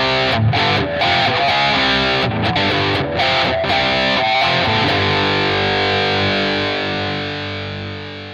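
Epiphone Prophecy SG electric guitar with Fishman Fluence pickups, played with distortion: a riff of short, choppy chords with brief gaps between them. About two-thirds of the way through, a final chord is left ringing and slowly fades.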